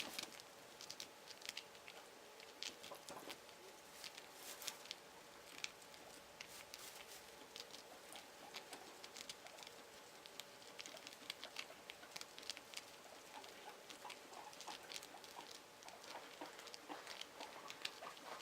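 Guinea pigs moving about their enclosure: faint, irregular pattering and rustling with scattered small clicks.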